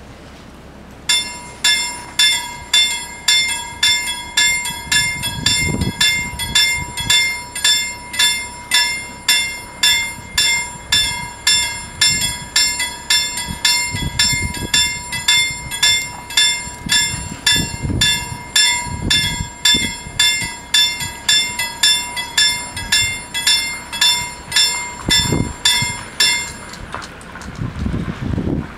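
Swedish level-crossing warning bells ringing, about two metallic strokes a second, the alarm for an approaching train. They start about a second in and stop shortly before the end, once the barriers are down.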